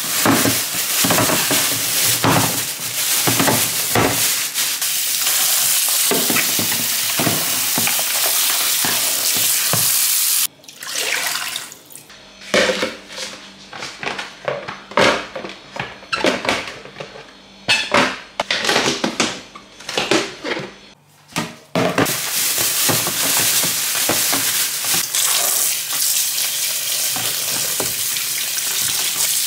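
Kitchen tap running into a stainless steel sink as produce is rinsed by hand. About ten seconds in, the water stops and there are short rustles and knocks of plastic bags and containers being handled. Just past twenty seconds the tap runs again over tomatoes in a plastic bowl.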